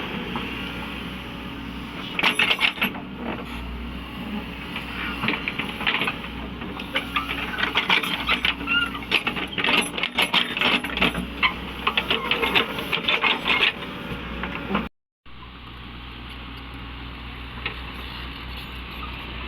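Caterpillar 307E2 excavator at work: its engine runs steadily under a rapid, irregular clatter of sharp clicks and knocks, like stone and metal striking. The sound cuts out for a moment near the end and then comes back as a steadier engine hum.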